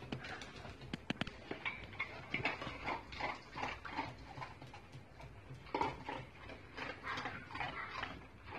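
Dogs jumping up and jostling on a tiled floor, with sharp clicks of claws on the tiles and short, irregular dog noises.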